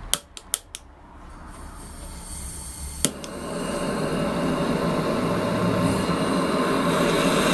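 Rothenberger MAP gas blowtorch being lit: four quick clicks, then the hiss of gas grows into the steady rushing noise of the burning flame, with one more sharp click about three seconds in.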